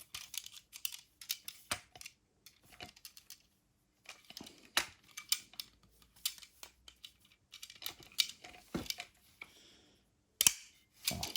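Scattered clicks and knocks of an airsoft AK rifle being handled, its parts and stock worked by hand.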